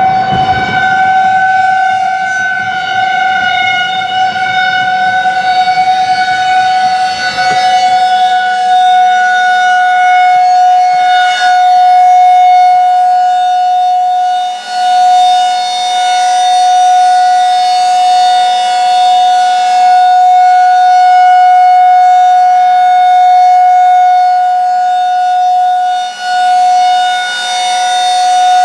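Federal Signal 2001-SRN outdoor warning siren sounding a steady tone, its loudness swelling and dipping as the rotating horn turns. A low rumble underneath fades away over the first several seconds.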